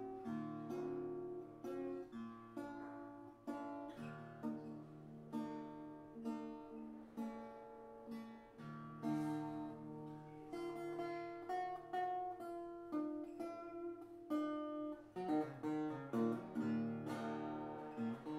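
Music: an improvised solo on a koa-wood acoustic guitar, picked single notes and plucked chords, with a busier run of notes in the last few seconds.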